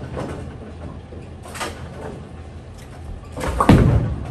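Steady low rumble of a bowling alley, then near the end a heavy thud as a Storm Phaze 4 bowling ball is released onto the wooden lane and starts rolling.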